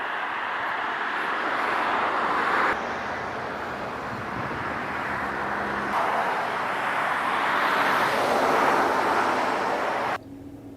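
Road traffic: the rushing noise of passing cars, swelling and changing abruptly a few times.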